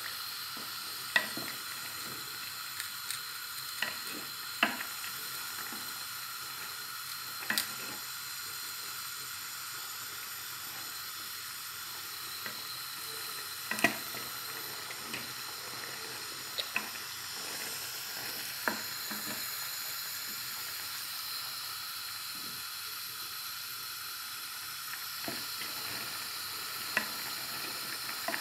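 Taro-stolon and dried-shrimp curry boiling hard in an aluminium pot, a steady sizzling hiss. A wooden spoon stirring it knocks sharply against the pot now and then at irregular moments.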